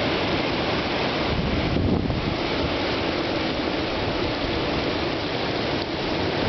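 Strong storm wind blowing against the microphone: a loud, steady rush of noise with brief dips.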